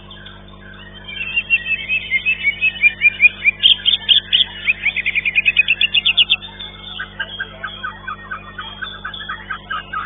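White-rumped shama (murai batu) singing a fast run of repeated high notes and trills. The song is loudest in the first half and turns to softer, quieter phrases after about six seconds.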